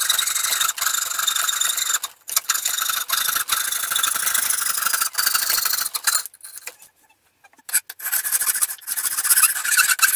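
Coping saw cutting through a wooden blank clamped in a vise: a run of quick rasping saw strokes, with short breaks and one longer pause of about a second and a half a little past the middle.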